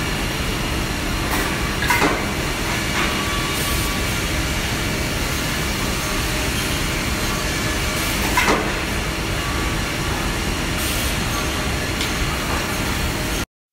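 Woodmaster WM-S260 defect-cutting saw line running with a steady mechanical whir. Sharp clacks come about two seconds in and again about eight and a half seconds in. The noise cuts off abruptly just before the end.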